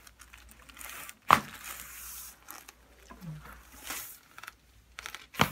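Sharp, loud crack of a joint being manipulated in a chiropractic adjustment, about a second in, and a second crack near the end, with soft breathing and rustling between. The joint was stiff: "locked up".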